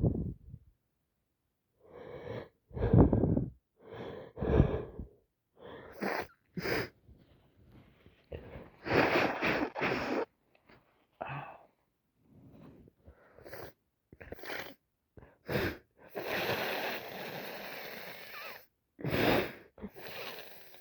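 A person sneezing again and again during an allergy attack, about a dozen short separate bursts with breaths between them, and one longer noisy stretch near the end.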